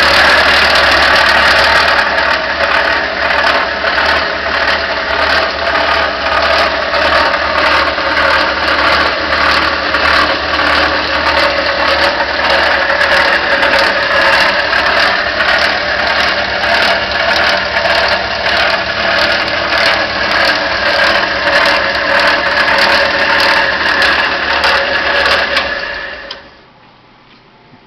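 Vintage Emerson Electric 1" x 42" belt sander with a 1/3 hp Dayton motor running with no load: a steady motor hum under the whir of the belt, which dies away near the end.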